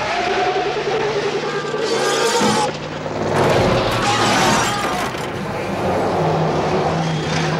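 Action-film soundtrack: loud music with crashing and glass shattering.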